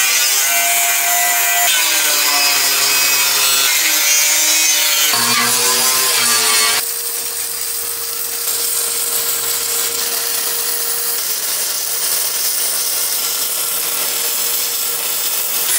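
Angle grinder grinding welded steel: a dense, harsh hiss over a motor whine whose pitch shifts as the disc is pressed into the metal. The sound changes abruptly about seven seconds in, then carries on with a steadier whine.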